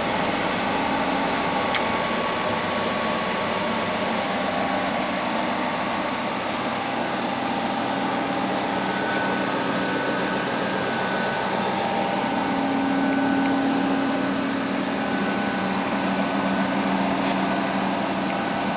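Estarta 301 CNC centerless grinder running: a steady machine hum with several held tones and a faint high whine.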